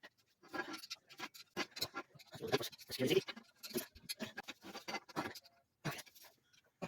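Irregular clicks, taps and scrapes of a hand tool and metal coat-rack parts being handled while a bolt is tightened.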